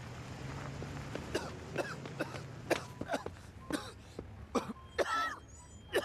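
A man coughing in a long fit: a string of about ten short coughs, with a louder, longer one near the end.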